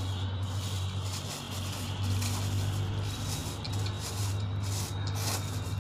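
Clear plastic bag rustling and crinkling in short scattered bursts as a flexible-leg tripod is pulled out of it, over a steady low hum.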